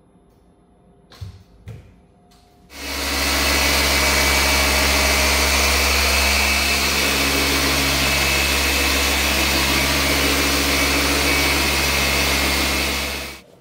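FLEX machine polisher with a foam pad running steadily against a car's paintwork, polishing it during paint correction. It starts about three seconds in after two light clicks, and stops just before the end.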